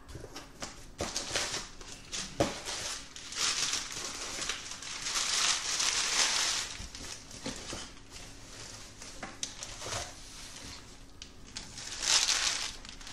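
Brown packing paper crumpling and rustling as it is pulled out of a cardboard box, with scattered light knocks from handling the box and its contents. The rustling is loudest about three to seven seconds in and again near the end.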